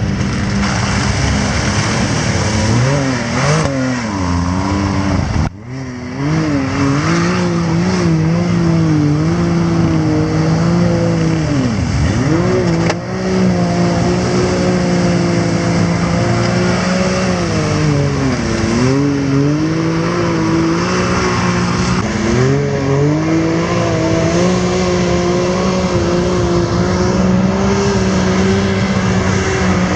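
Can-Am Maverick X3 side-by-side engine running hard under load, its revs rising and falling continuously. The revs drop sharply and recover about twelve seconds in, and again near nineteen seconds. There is a brief break in the sound about five seconds in.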